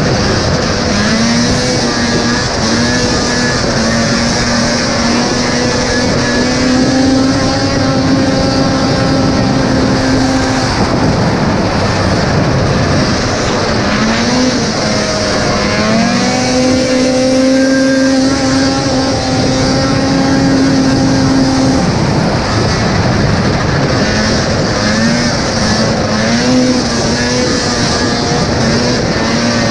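Vintage racing snowmobile's two-stroke engine running near full throttle, heard from on board. It holds a high, steady pitch on the straights and falls off briefly three times as the sled eases for the turns, then climbs back up. A steady hiss of wind and skis on the ice runs under it.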